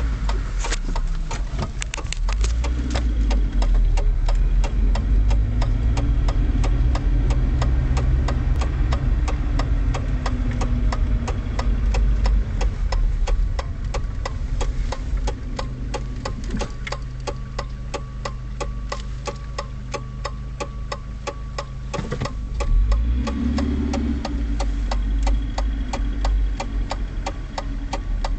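Car engine running, heard from inside the cabin, its low rumble heavier at the start and again near the end. Over it, a fast, even ticking keeps up throughout.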